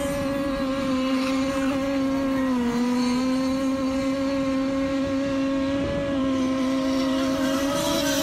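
Racing speedboat engine running at a high, steady speed. Its pitch holds level apart from a brief dip about two and a half seconds in, over a rushing noise.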